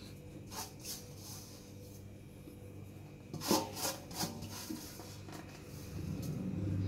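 A hand rubbing and scraping a dry semolina-and-spice coating around a stainless steel bowl, with a few sharp taps and clinks of the bowl about halfway through.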